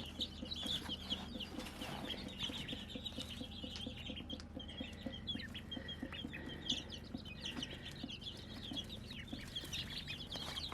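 A brood of young chicks and ducklings peeping continuously, many short high chirps overlapping, over a faint steady low hum.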